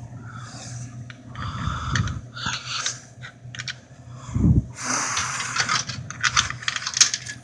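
Coins being fed into a vending machine: irregular clicks, clinks and rattles of the coins and the coin mechanism, with a dull thump about halfway through and a quick run of clicks near the end.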